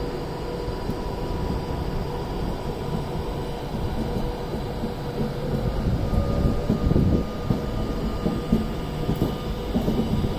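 Avanti West Coast Class 390 Pendolino electric train pulling out of the station, running with a steady rumble and electric whine; about six seconds in, a faint rising whine comes in as it gathers speed.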